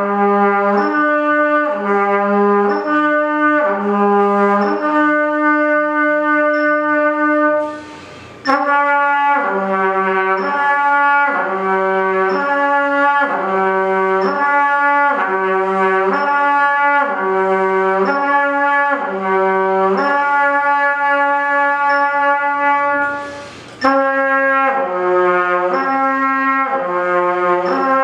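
Trumpet playing lip slurs: slurred notes moving back and forth between two or three partials, each held about half a second to a second, with two short breaks for breath. The player finds the change to the next partial not yet smooth, with some air escaping at the embouchure.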